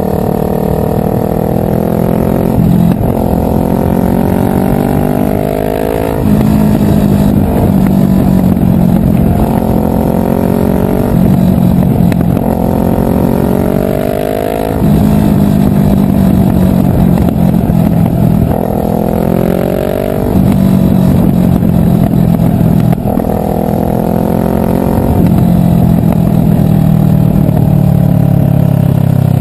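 Kawasaki ER-6n's parallel-twin engine running loud through an Akrapovic replica exhaust with its dB killer removed. The pitch climbs and then drops back every two to four seconds as the bike accelerates through the gears.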